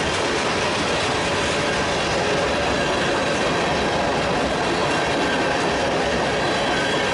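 Freight train of covered hopper cars rolling past close by: the steady noise of steel wheels on rail, with a faint steady high squeal.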